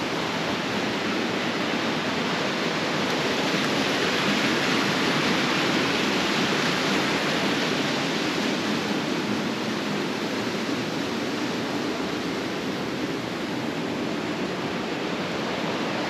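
Steady rush of water from a cascade in a rocky creek, a little louder about four to eight seconds in.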